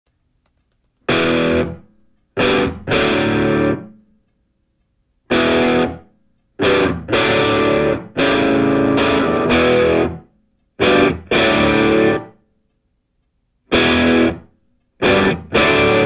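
Background music: distorted electric guitar playing chords in short stabs and held phrases, each cut off into full silence before the next.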